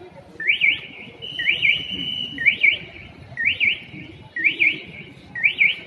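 A high, quick double chirp of two fast rising notes, repeated evenly about once a second, over low crowd noise.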